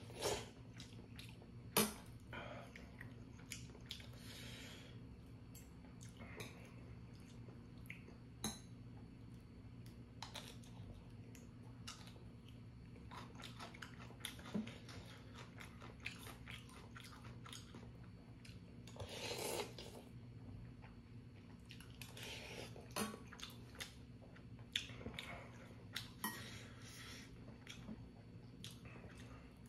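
A person eating ramyeon: slurping noodles and chewing, with chopsticks and a metal spoon clicking against a stainless steel bowl. There is a steady low hum underneath.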